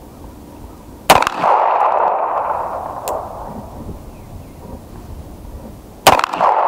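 Two shots from a Beretta pistol about five seconds apart, each with a tail that fades over about a second.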